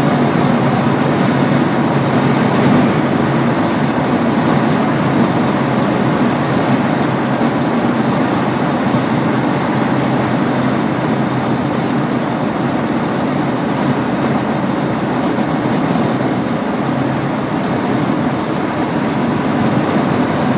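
Ford 7.3 IDI turbo diesel V8 running steadily under way, a dense, even engine and road noise.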